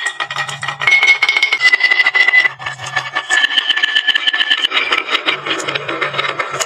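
Marbles rolling and clacking down a wooden marble run, a rapid stream of small hard clicks and rattles. Background music with held notes plays underneath.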